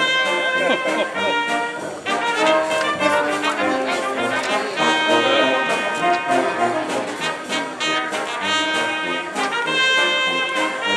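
Band music led by brass, with trumpets and trombones playing a melody over a steady beat.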